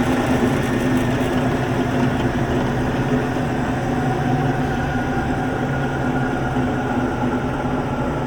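Wilton 2221VS variable-speed drill press running steadily on its 1.5 HP single-phase motor: a constant hum with a thin whine that edges slightly up in pitch in the second half.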